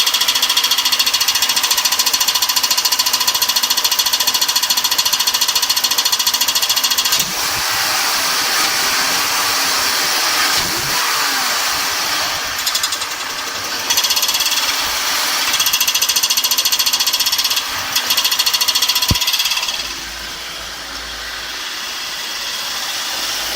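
BMW E46 engine running with a loud, fast, rhythmic knocking clatter. The clatter stops and starts a few times, and near the end only a quieter steady engine sound is left. This is the engine knock the owner is tracking down.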